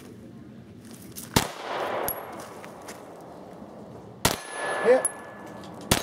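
Three gunshots, the first about a second and a half in, then two more close together near the end, with steel targets ringing after the hits.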